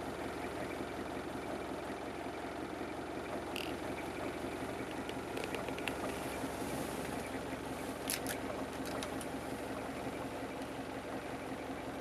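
Toyota 2L 2.4-litre naturally aspirated diesel idling steadily, heard from inside the cab, with a few sharp clicks along the way.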